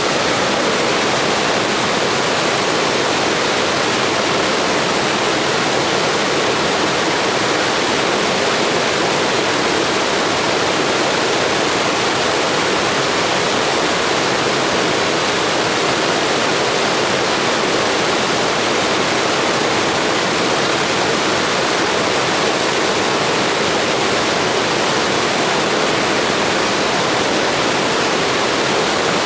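Blizzard wind as a steady, unbroken rush of noise with no gusts or lulls.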